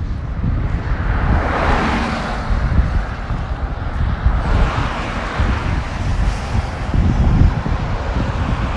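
Wind buffeting the phone's microphone with a heavy low rumble, while traffic passes on the road, swelling and fading twice.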